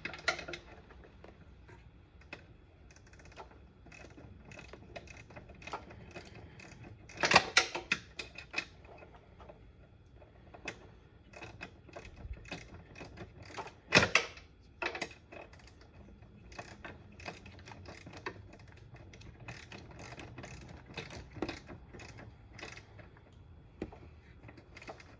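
Hand ratchet with a 10 mm socket clicking in short runs as the headlight-motor nuts are run down and tightened, with two louder knocks of the tool against metal, one about seven seconds in and one about fourteen seconds in.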